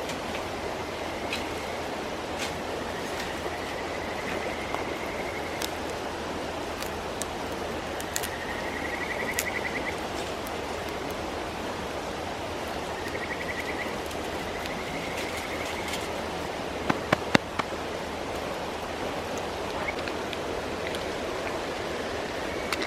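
Mountain stream flowing steadily. A high trilling call is repeated several times over it. A quick cluster of sharp clicks or knocks comes about two-thirds of the way through.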